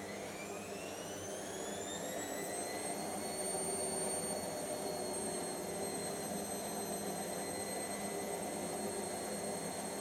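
Hotpoint Aquarius WML540G washing machine on a spin: the motor's whine rises in pitch over the first three seconds as the drum speeds up, then holds steady at about 600 rpm over the steady whir of the drum.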